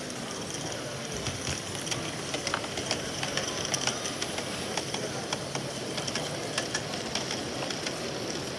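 A 16mm-scale live-steam model locomotive running with its wagons, giving a steam hiss and irregular light clicks from wheels on the track, over steady background noise.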